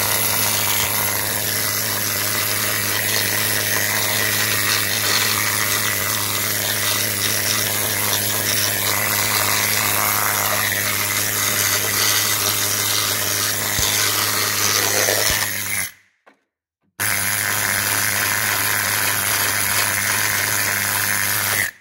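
Kobe needle scaler hammering rust and scale off a Jeep's rusty steel chassis rail, a loud, steady, rapid buzz. It stops for about a second roughly three-quarters of the way through, then starts again.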